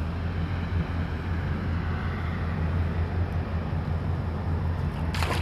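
Boat motor running steadily with a low hum, under a hiss of water and wind. Just before the end a sudden loud rush of noise starts.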